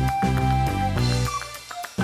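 Background music: a melody over bass with a regular beat.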